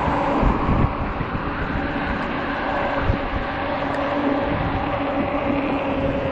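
Ecotric 48V fat-tire e-bike under way: a steady hum with a few held tones from the hub motor, over tyre noise on the road and wind on the microphone.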